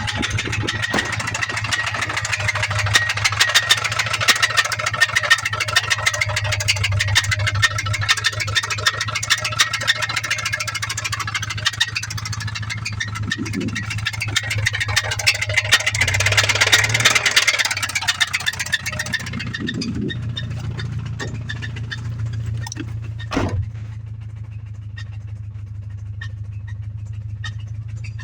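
2003 Subaru Legacy's flat-four boxer engine running with a rapid, even metallic knocking: rod knock from a worn connecting-rod bearing. The engine swells louder briefly a little past the middle, runs quieter for the last third, and one sharp thump sounds near the end.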